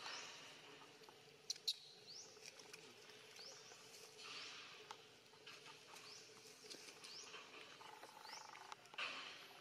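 Faint, short high-pitched chirps, each rising in pitch, repeating about once a second from a small animal, with two sharp clicks about one and a half seconds in.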